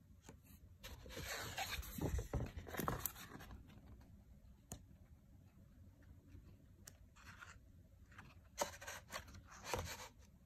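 Pages of a graphic novel being turned and handled: paper rustling and sliding in two bouts, the first starting about a second in and the second near the end, with a light tap or two in between.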